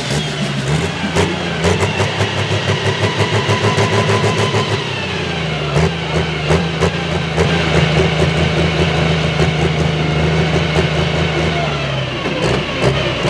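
Turbocharged diesel engine of a Pro Stock pulling tractor idling after its pull, with a lumpy, pulsing beat.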